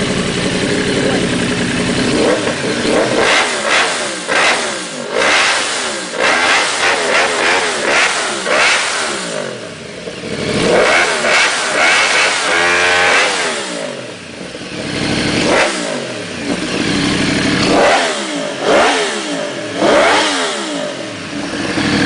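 2009 Yamaha R1's crossplane inline-four, fitted with an FMF Apex exhaust, idling and then revved over and over in quick blips, the pitch climbing and dropping with each one. It drops back to a steady idle briefly around the middle and again near the end.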